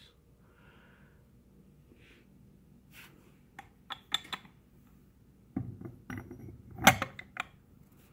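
Scattered light clicks and knocks of handling noise over quiet room tone, in two clusters, the loudest knock about seven seconds in.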